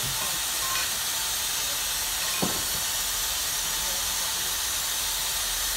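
Steady steam hiss from the stationary model of LMS Patriot 45534, as produced by a sound-fitted model locomotive standing at a station. A short knock sounds about two and a half seconds in.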